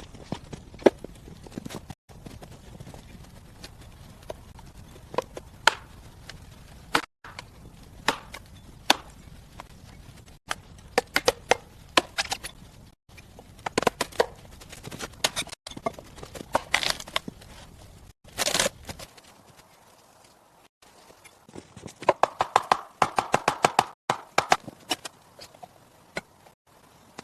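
A run of irregular sharp knocks and crunches in short segments broken by sudden cuts, with a dense flurry of knocks near the end. A low steady rumble lies under them until about two-thirds of the way through.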